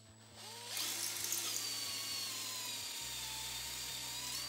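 Makita cordless drill spinning up about half a second in and drilling steadily down through a snapped steel bolt in an aluminium outboard block, its motor whine sagging slightly under load before it stops at the end. This is the final drill size before the hole is tapped for a Helicoil thread repair.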